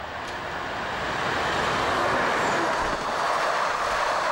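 A former Reichsbahn V100-class diesel locomotive approaching and passing with a freight train, the wagons then rolling past at speed. The noise of engine and wheels on rail grows louder over the first two seconds and then holds as a steady loud rush.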